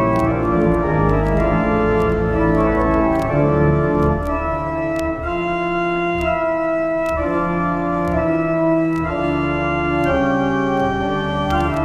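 Church organ playing held chords that change every second or so, over deep bass notes.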